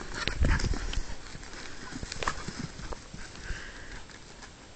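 Irregular thuds and scuffs of footsteps on a dirt bush track, with bumps from a jostled handheld camera, loudest in the first second and thinning out after about three seconds.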